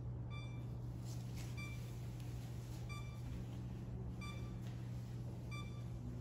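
Camera beeping for self-timed shots: short, high electronic beeps about every 1.3 seconds, five in all, over a steady low hum.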